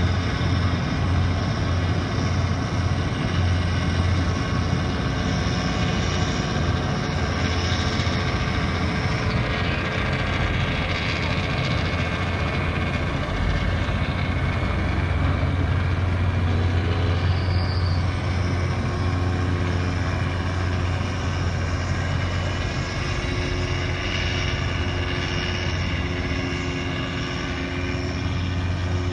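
A boat's engine running with a steady low drone and a few steady humming tones above it.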